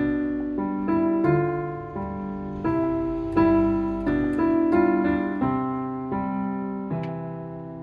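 Slow piano lullaby: soft chords and melody notes struck about one every half second to second, each ringing on and fading. The playing grows quieter toward the end.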